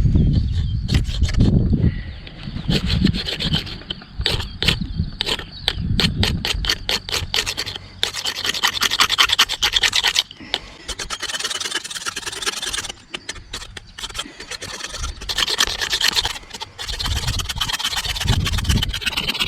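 Victorinox Forester pocketknife blade shaving curls off a wooden stick to make a feather stick: repeated rasping scrapes of steel on wood, coming in quick runs of strokes.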